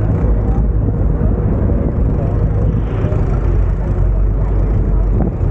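A river tourist boat's engine running steadily under way, heard from the open deck as a loud, steady low rumble with a faint steady hum above it.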